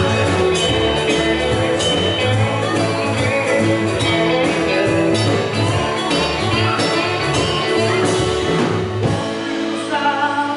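Live band playing a country-rock song: electric guitars, bass guitar and drum kit, with a sung vocal.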